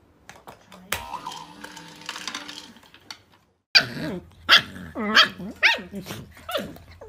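Dogs barking and yipping, a quick run of about seven loud, pitched calls that bend up and down, starting suddenly a little past halfway. Before that, only a few quieter knocks and clicks.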